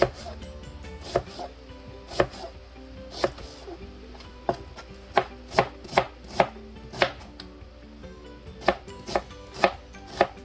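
Chef's knife chopping an onion on a cutting board: sharp knocks of the blade hitting the board, irregular, about two a second.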